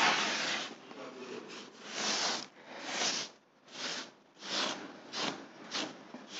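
Cloth wiped in repeated strokes over a freshly sanded wall-putty surface to clear off the sanding dust; each stroke a short dry swish, the strokes coming quicker toward the end.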